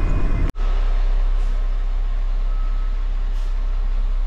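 Kenworth dump truck's diesel engine running steadily, a low rumble heard from inside the cab. The sound breaks off for an instant about half a second in.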